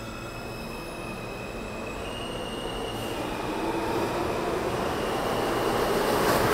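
New York City Subway R160 train approaching, its rumble growing steadily louder, with thin high whining tones over it.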